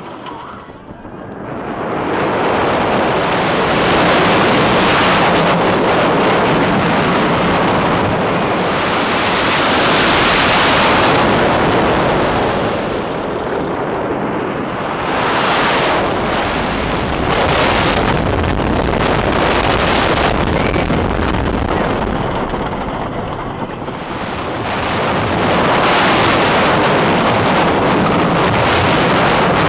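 Roller coaster ride heard from the front seat: wind rushing over the microphone and the train running on the track at speed. The rush rises about two seconds in as the train goes over the crest, and eases off briefly twice along the way.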